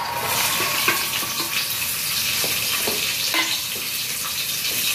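Chopped onion hitting hot oil and garlic in a wok, starting a steady sizzle, with a wooden spatula clicking and scraping against the wok as it is stirred.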